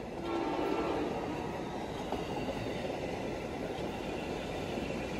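Amtrak passenger cars rolling past at speed: a steady rumble and rush of wheels on rail, with a brief humming tone in the first second.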